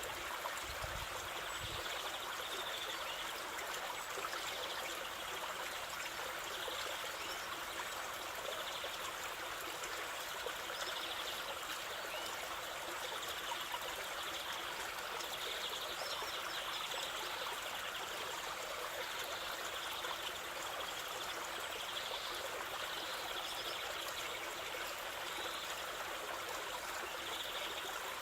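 Water of a waterfall rushing and splashing steadily, an even unbroken wash of sound.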